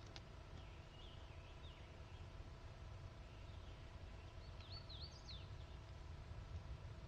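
Faint songbird chirps over a quiet forest background: a short twittering phrase about a second in, and a louder run of quick rising and falling notes around five seconds in. A faint click sounds at the very start.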